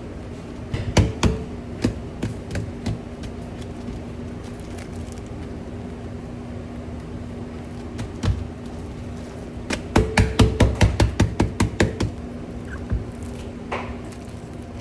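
Sharp knocks and taps of kitchen handling over a steady low hum, with a quick run of about a dozen taps around ten seconds in.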